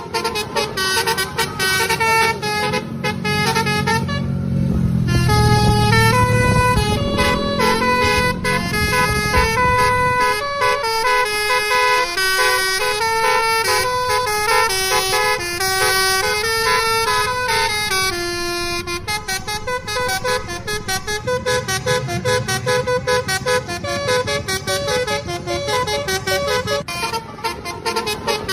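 Telolet horn, a multi-tone air horn playing a melody, its notes stepping up and down every half second or so. A low rumble lies beneath it, strongest in the first third and again near the end.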